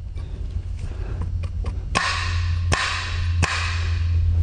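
Three sharp metallic clicks of a side-by-side shotgun being worked after reassembly, its fore-end and action latching and unlatching, with a rushing noise from about two seconds in. A steady low hum runs underneath.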